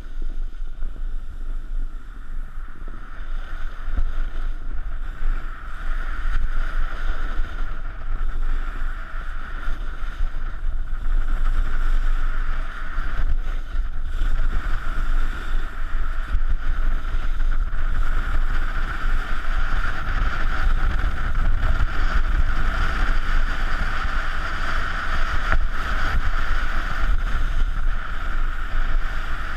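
Wind buffeting the microphone of a pole-held camera while a snowboard slides and carves over packed snow, its base and edges hissing steadily. The rush grows louder a few seconds in as speed picks up.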